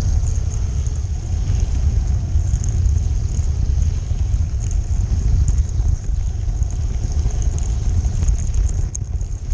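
Large-scale model train running along its track, heard from a camera riding on it: a steady low rumble of motor and wheels with a thin high whine.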